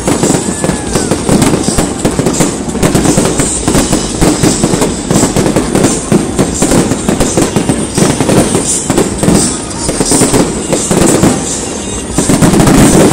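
Fireworks display: aerial shells bursting in rapid, continuous bangs and crackling, loudest near the end.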